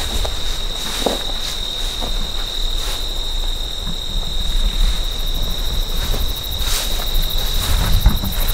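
Insects trilling steadily in a continuous high-pitched chorus, with a low rumble underneath that grows louder near the end.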